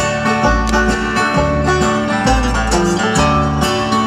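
Live bluegrass band playing an instrumental break, with quick picked acoustic strings over low bass notes that step along in time.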